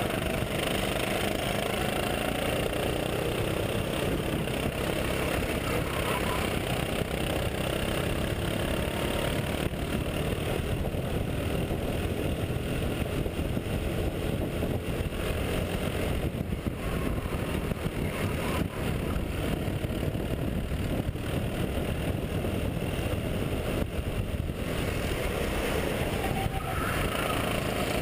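Rental go-kart engine running at racing speed, heard from on board, its note rising and falling through the corners, with wind rushing over the camera microphone.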